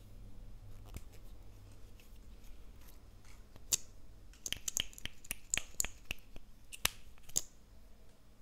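Lip gloss tube and its applicator wand handled close to the microphone. A few faint ticks come first, then a quick run of sharp little plastic clicks from about halfway through to near the end.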